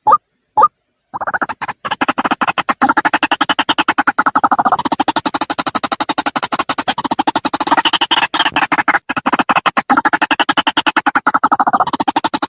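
White-breasted waterhen calls: two short rising notes, then from about a second in a rapid, unbroken stream of harsh pulsing calls that swell and fade, as of several birds calling together.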